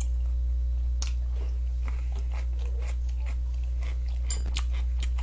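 A person chewing crunchy food close to the microphone, in irregular crackly bites, over a steady low electrical hum.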